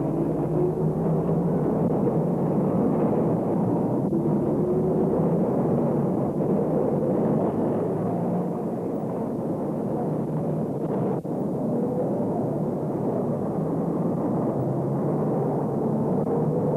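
A film soundtrack's steady, dense rumbling noise, with faint rising tones sliding through it and a brief dip about eleven seconds in.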